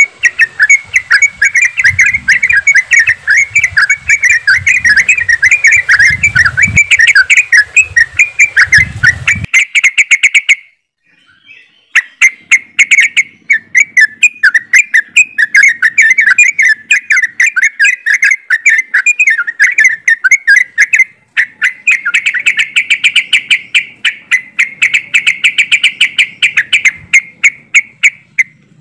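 A flock of yellow-vented bulbuls (trucukan) chattering and calling together in dense, overlapping chirps. The chorus breaks off for about a second near the middle, then resumes.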